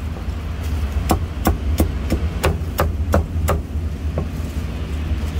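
A meat cleaver chopping through crispy roast pork belly on a chopping block: a quick run of about eight sharp chops, roughly three a second, with one more just after four seconds in.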